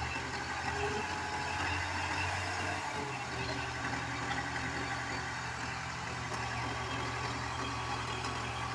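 Farm tractor's diesel engine running steadily as the tractor sits bogged in deep mud. Its low note shifts slightly just under three seconds in.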